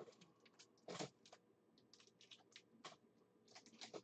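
Faint, irregular clicks and taps over near silence, a slightly louder one about a second in and a small cluster near the end.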